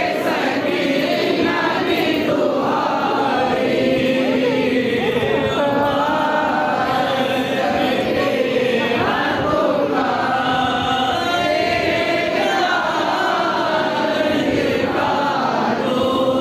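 A crowd of devotees chanting and singing together, a munajat (devotional supplication), many voices overlapping in loose unison over crowd noise.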